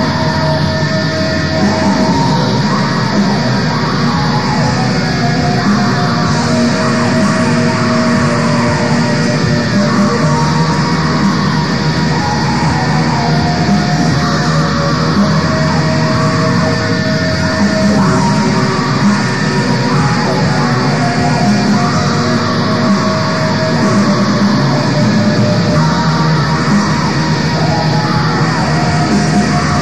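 Raw black metal: heavily distorted electric guitars playing long held melodic notes in a dense, unbroken lo-fi wall of sound.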